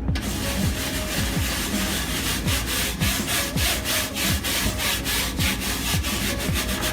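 Rapid, rhythmic back-and-forth scrubbing inside a microwave, about four strokes a second, working at hard-water spots.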